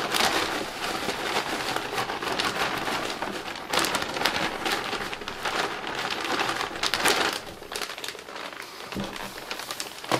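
Soil being sprinkled and spread by hand into a worm-breeding tank over soaked egg cartons and paper: a dense crackling patter like rain, easing off near the end.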